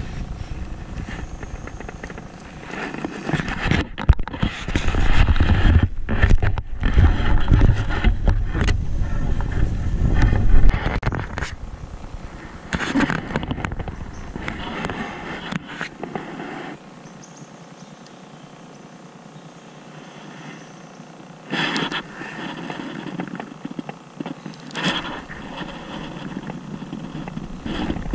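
Wind buffeting the camera microphone in uneven gusts, heaviest in the first half, with a couple of sudden knocks of gear near the end.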